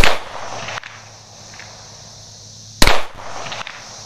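Two shots from a Springfield XDM 5.25 pistol in .40 S&W, one right at the start and one about three seconds later, each a sharp crack with a short trailing echo.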